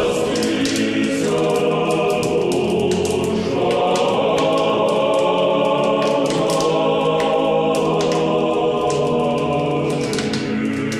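A choir singing slow, long-held chords in chant style, the chords changing every few seconds, with many short sharp high ticks over it.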